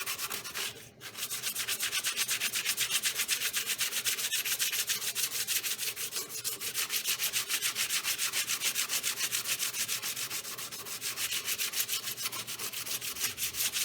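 Hand sanding of freshly CNC-cut wood with sandpaper, a rapid, even rasp of back-and-forth strokes, with a brief pause about a second in. This is light sanding to clean up the carved cuts.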